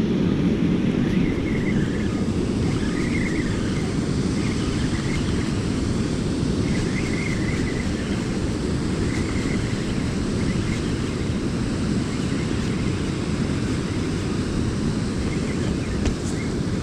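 Steady low rush of river water and wind on the microphone, with a few faint high chirps now and then.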